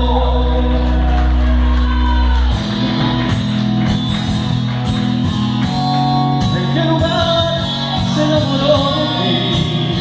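A backing track plays over a PA system while a man sings live into a handheld microphone. A held chord gives way, about two and a half seconds in, to a rhythmic section with steady percussion.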